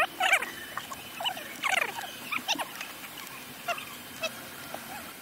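Several short squeaks of plastic dashboard trim rubbing as hands and a small tool work the centre console, some sliding down in pitch.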